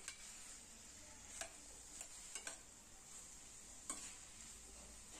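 A metal spoon stirring drumstick and brinjal pieces in a stainless steel pan, with a few scrapes and knocks against the pan over a faint steady sizzle as the vegetables sauté with ginger-garlic paste.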